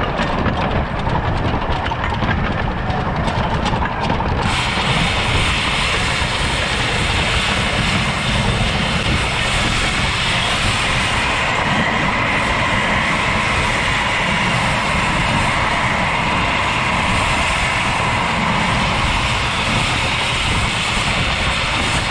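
Miniature 15-inch gauge 4-4-2 steam locomotive running along the track, with a rapid clatter of wheels on the rails, heard from the cab. About four seconds in, a steady hiss of escaping steam sets in and continues.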